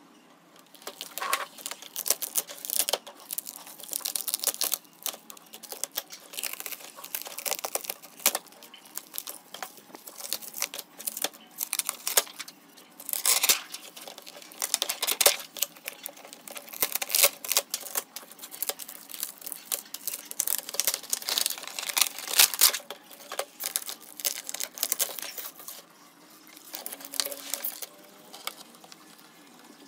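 Irregular crinkling, peeling and scraping of thin plastic film and diffuser sheets from a laptop LCD panel, with small clicks and taps of parts on a metal workbench. Near the end there are short squeaks as a small screwdriver turns screws in a hard drive casing.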